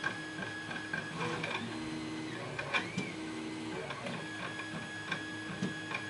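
Lock pick working the pins of a pin-tumbler lock cylinder under tension: scattered small metallic clicks and scraping as the pins are probed and set one at a time.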